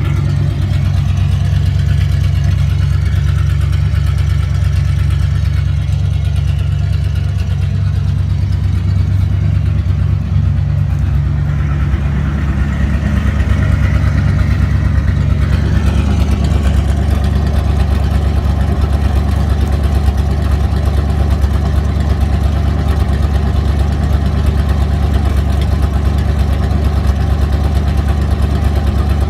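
Straight-piped Buick 401 Nailhead V8 idling steadily with no muffler, its exhaust note loud and deep; the sound brightens briefly about halfway through.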